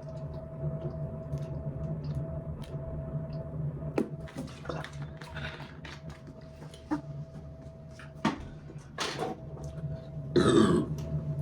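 Scattered small clicks and handling noises over a steady low hum, then a loud burp near the end.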